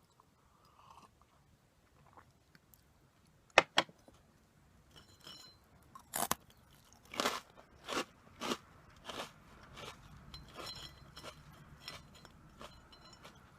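Crunchy corn puff snacks (Meiji Karl) being bitten into with two sharp cracks, then chewed with a run of crunches about every two-thirds of a second that grow fainter toward the end.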